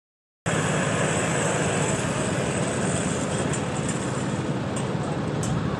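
An engine running steadily with an even, low firing beat under a broad hiss. The sound cuts in abruptly about half a second in.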